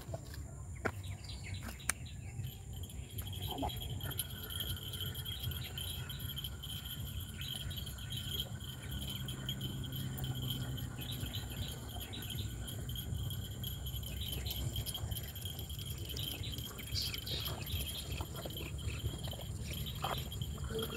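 Insects chirring steadily at a high pitch, starting about two seconds in, with a second, lower steady trill joining soon after, over a constant low rumble.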